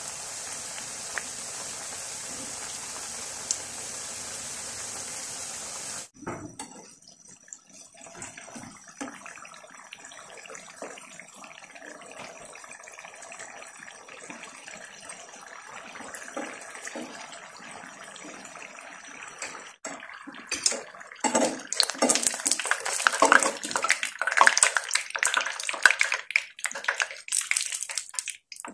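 Battered potato rings deep-frying in hot oil: a steady, dense sizzle, which about 6 s in turns abruptly into a quieter crackle. In the last third the crackling grows loud, with many sharp clicks and scrapes as a metal slotted spoon works in the pan to turn and lift the rings.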